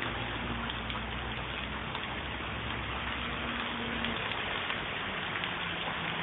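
Heavy rain falling steadily, a dense even hiss with scattered small drop ticks.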